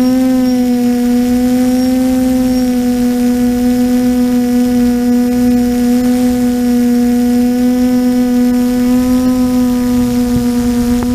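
TBS Discovery quadcopter's brushless motors and propellers heard from the onboard camera: a steady buzzing hum that nudges up in pitch at the start and then holds nearly level.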